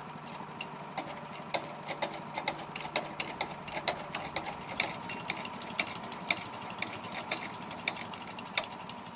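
A small engine running steadily at a constant speed, with irregular sharp clicks and knocks a few times a second.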